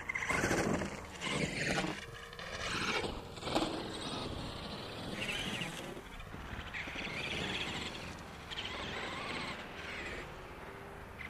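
Electric motors and geared drivetrains of 1/10-scale Traxxas Summit RC trucks whining in bursts of throttle, loudest in the first four seconds, then a fainter, steadier whine.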